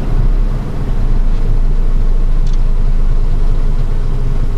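A steady low rumble with a hiss over it and no speech.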